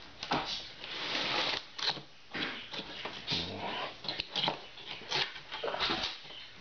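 Cardboard box being handled and its top flaps pulled open: irregular scraping and rustling of cardboard with light knocks.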